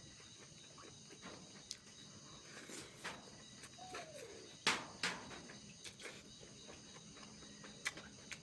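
Faint mouth sounds of eating: scattered chewing smacks and clicks, the loudest a little before and just after the five-second mark, over a steady faint high hiss. About four seconds in there is one short pitched sound that rises and then falls.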